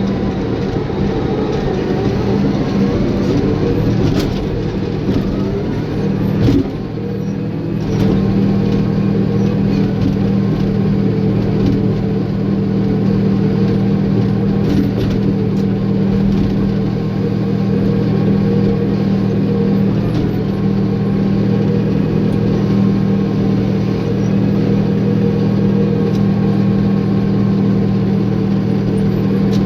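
Caterpillar bulldozer's diesel engine running steadily with a constant low hum, briefly dipping after a knock about six and a half seconds in.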